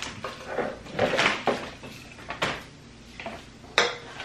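A few short bursts of rustling and light knocks as a hand rummages through folded paper slips in a glass jar and then unfolds one.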